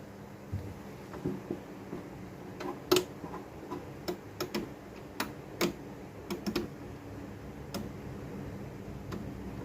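Irregular small clicks and taps of hand tools against phone parts during a screen repair, the sharpest about three seconds in, over a faint steady hum.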